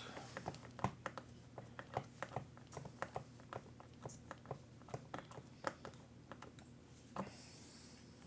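Irregular light clicks and taps of small tools and plastic and metal parts being handled while working on an RC truck, a couple a second, with a brief rustle near the end.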